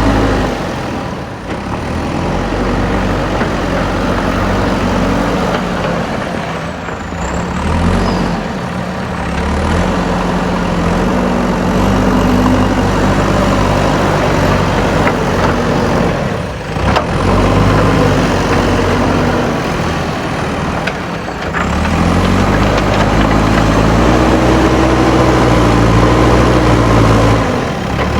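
Diesel engine of a JCB backhoe loader working, its pitch rising and falling as the throttle changes under load, with a few brief drops and a higher, steadier run for the last several seconds.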